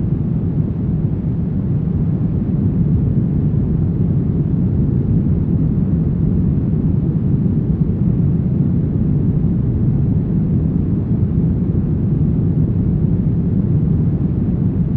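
Steady, deep brown noise: an even rumbling hiss weighted to the low end, with no changes.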